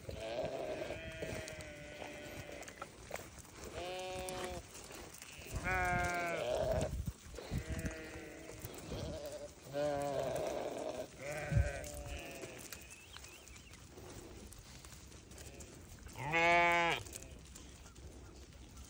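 A flock of sheep bleating: about seven separate wavering bleats from different animals, the loudest near the end. There is one sharp thump about two-thirds of the way through.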